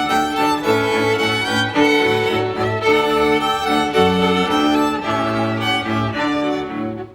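Live bowed-string ensemble music, violin to the fore with cello beneath, playing sustained, changing notes.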